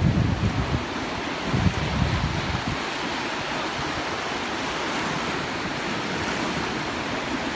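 Small waves breaking and washing up on a sandy shore, a steady hiss of surf. Wind buffets the microphone with low rumbles for the first few seconds, then dies away.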